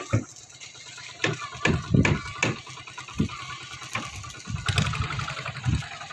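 A few sharp knocks, then from about four and a half seconds in a small boat engine running steadily with a low hum.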